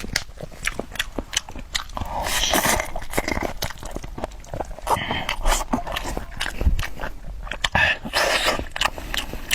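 Close-up wet chewing and lip-smacking while eating braised pork trotter, with many quick clicks. Two longer noisy stretches come about two seconds in and near the end.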